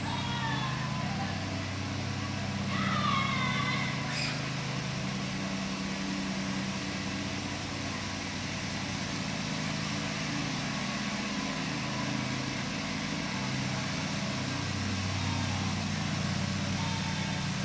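A low, steady engine drone, like a motor vehicle running nearby, its pitch shifting slightly now and then. Over it, a bird gives short, bending calls near the start and again about three seconds in.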